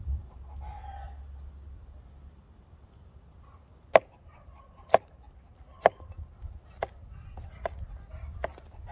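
A hen clucks briefly near the start. From about four seconds in, a knife chops a green pepper on a plastic cutting board, giving sharp knocks about once a second.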